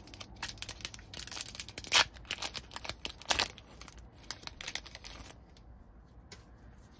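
A Pokémon card booster pack's foil wrapper being torn open and crinkled, a run of crackling rips with two louder tears in the middle, then it goes quiet for the last couple of seconds.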